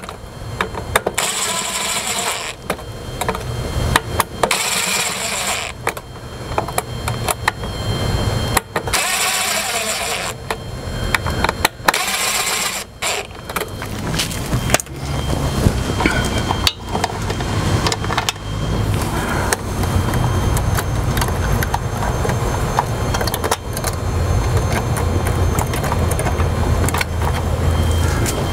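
Cordless drill running in about five short bursts of a second or so each, driving screws into an electrical timer box. From about halfway through, a steady low rumble takes over.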